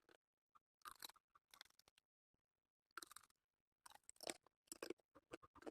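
Close-miked crunchy chewing, in about six short crackling bursts with dead silence between them.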